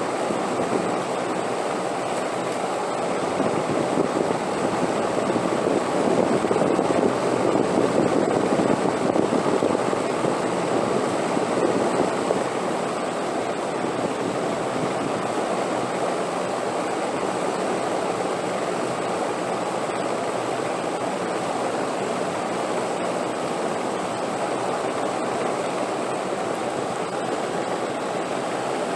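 Steady wind noise, swelling into a stronger gust from about four seconds in until about twelve seconds in, then settling back to an even rush.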